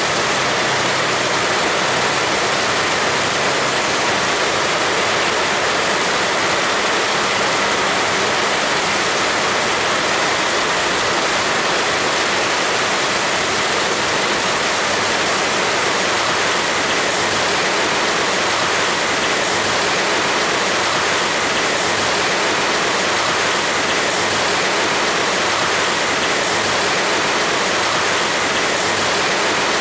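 Heavy rain falling in a steady, dense hiss with no breaks or separate drops standing out.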